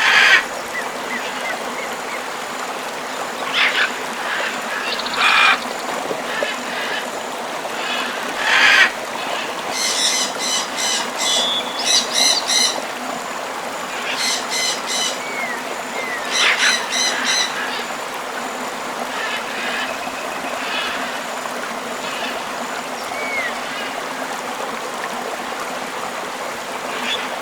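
Steady rush of a tropical river with birds calling over it: scattered short chirps and, around the middle, runs of quickly repeated harsher calls.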